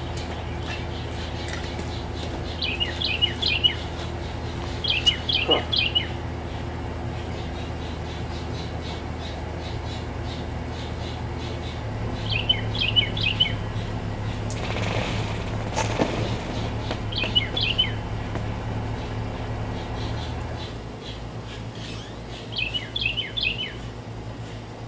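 A songbird chirping in short, quick bursts, about five times, over the steady low hum of an idling engine. The engine's note shifts about twelve seconds in and drops lower near the end. A brief rushing noise comes about fifteen seconds in.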